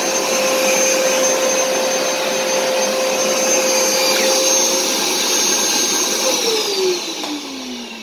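Hoover SmartWash carpet cleaner's motor running steadily as it is pushed over carpet. About six seconds in it winds down, its whine falling in pitch as the sound fades.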